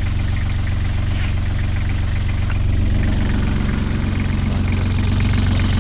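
Beta Marine 28 hp three-cylinder marine diesel idling steadily at tick over, warmed up. It gets a little louder about halfway through.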